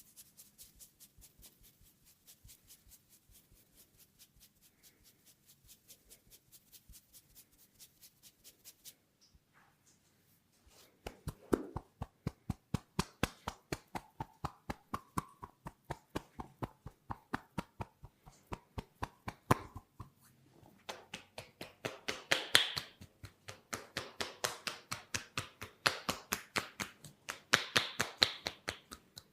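Hands tapping rhythmically in an Indian head-massage routine, about four crisp slaps a second. The tapping is soft for the first nine seconds and turns much louder and sharper after a brief pause at about ten seconds.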